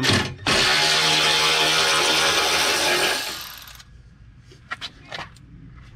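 Cordless electric ratchet running for about three seconds as it spins out a heat-shield bolt, trailing off as it stops, followed by a few light clicks.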